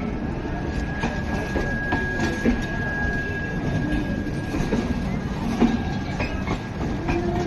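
Indian Railways passenger coaches rolling past at close range as the express departs. The wheels rumble steadily on the rails, with scattered clanks from the running gear and rail joints. A steady high wheel squeal runs from about a second in until about six seconds in.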